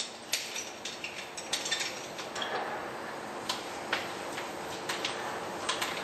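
Metal tool clicking and clinking against truck wheel nuts as a wheel-nut tool is fitted and worked by hand: irregular sharp clicks, many in the first two seconds, then a few scattered ones.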